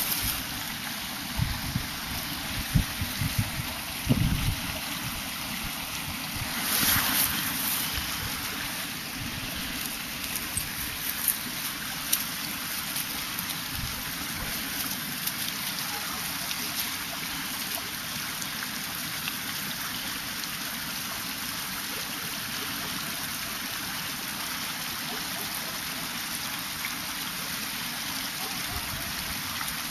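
Small stream running steadily over a rocky bed. In the first few seconds there are several low thumps and rumbles, with a short rustle about seven seconds in.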